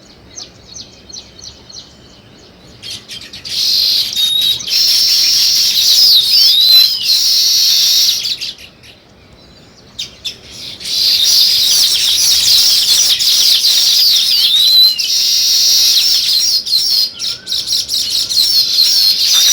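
Several sparrows chirping busily, many calls overlapping with quick up-and-down pitch sweeps. It opens with faint, evenly spaced chirps; the chorus swells loud about three seconds in, breaks off for about two seconds midway, then resumes.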